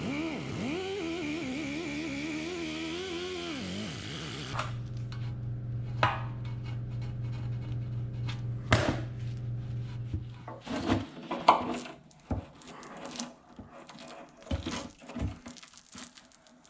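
A wavering pitched whine with hiss for the first few seconds, then a steady low hum, then scattered knocks and clinks of tools and metal parts being handled.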